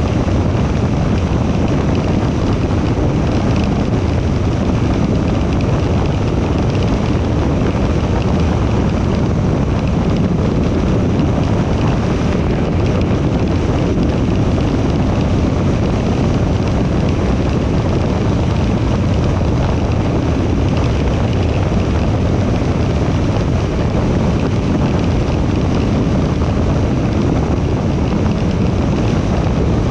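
Steady road and wind noise of a car cruising at highway speed: an even, deep rush with no breaks, with wind on the microphone.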